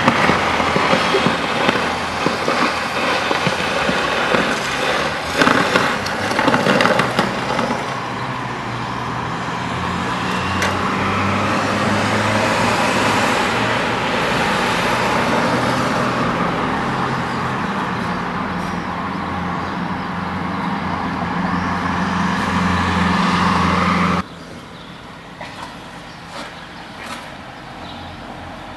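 Old dump truck's engine running steadily, with street traffic noise and a few clanks a few seconds in. The engine sound cuts off suddenly near the end, leaving quieter street noise with a few clicks.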